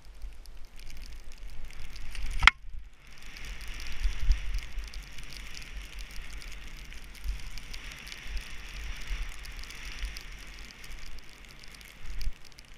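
Skis hissing over snow during a run, with gusty wind rumbling on the microphone. A sharp click about two and a half seconds in is followed by a brief gap in the sound.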